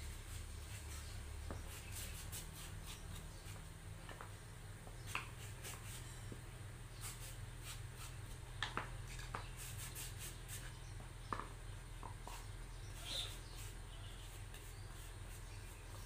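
Faint scattered crinkles and clicks of a thin embossed aluminium foil sheet being handled and pressed flat, with a few short squeaks, over a steady low hum.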